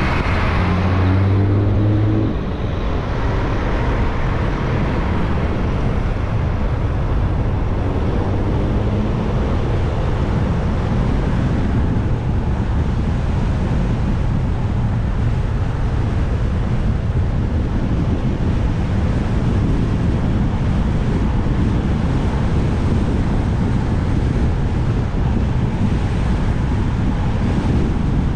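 Wind rushing over the microphone of a moving motorcycle, a steady loud rush with the engine running beneath it. The low engine note is clearest in the first two seconds.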